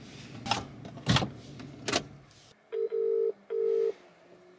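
Three sharp clicks, then the ringback tone of an outgoing phone call through the phone's speaker: a steady low beep in a double-ring pattern, two short pulses starting about halfway through, the Australian-style ring while waiting for the other end to answer.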